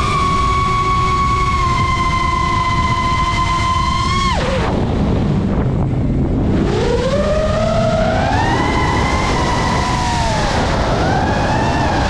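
FPV racing quadcopter's motors and propellers whining at a steady high pitch, which falls sharply about four seconds in as the throttle drops, then climbs again and wavers up and down as throttle is fed back in, over a constant rushing noise.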